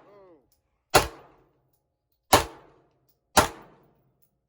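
Three gunshots, the first about a second in and the others roughly a second apart, each crack followed by a short echoing tail.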